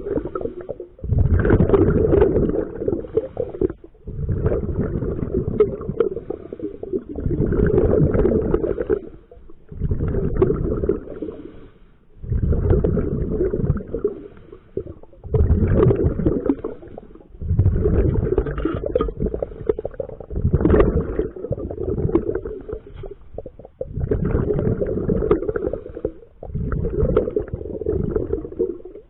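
A scuba diver breathing through a regulator, with exhaled bubbles rumbling and gurgling past the microphone. They come in repeated bursts of two to three seconds, with short pauses between.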